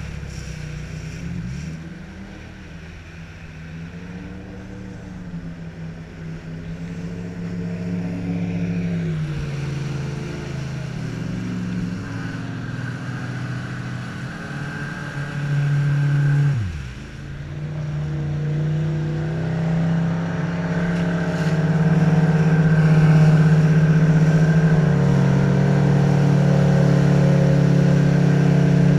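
Motor of a flat-bottomed aluminum boat running at speed, its pitch following the throttle. It dips and climbs back right at the start, falls away sharply and recovers about seventeen seconds in, then runs louder and steadier toward the end.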